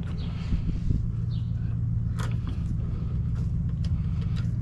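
Steady low drone of a running engine, with a few light metallic clicks as bolts are run in by hand.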